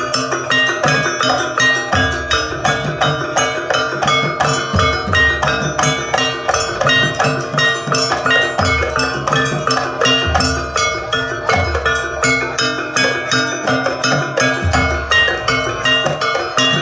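Javanese gamelan music accompanying a jaranan dance: rapid, dense notes on tuned bronze percussion over low beats that come every second or two.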